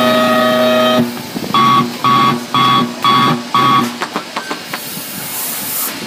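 Electronic tones from a BMX start-gate system: a steady tone that cuts off about a second in, then five short, higher beeps about half a second apart. A quick rattle of clicks follows.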